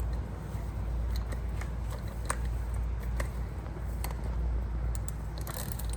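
Scattered light clicks and rattles of a vintage Yankee model 30A spiral push-drill screwdriver being handled, its stuck shaft just freed and drawn out, with a denser run of clicks near the end. A steady low hum runs underneath.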